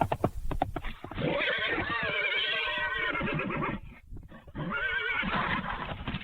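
A few sharp clicks or knocks, then an animal gives two long, quavering calls: the first starts about a second in and lasts nearly three seconds, and the second follows after a short pause.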